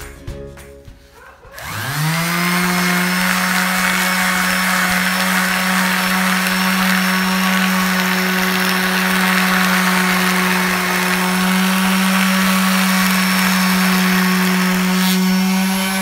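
Handheld electric sander switched on about a second and a half in: its motor spins up in a quick rising whine, then runs at a steady pitch against the painted wooden tabletop.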